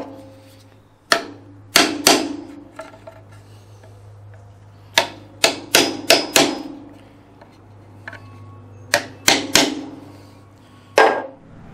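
A claw hammer tapping a steel nail punch to sink finishing-nail heads below the surface of a wooden board. There are about a dozen sharp metallic taps in bunches of three to five, with a pause between bunches, and each tap rings briefly.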